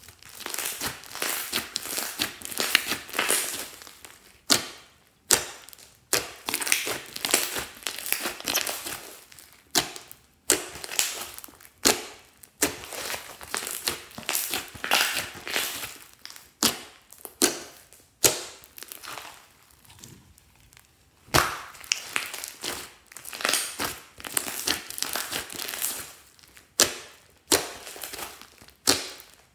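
Hands squeezing, stretching and folding a large mass of clear-base glitter slime: wet crackling and sharp clicking in bursts a second or so apart, with short pauses between handfuls.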